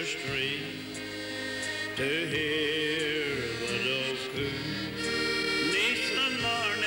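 Live dance-band music: a wavering, vibrato melody line over steady accompaniment.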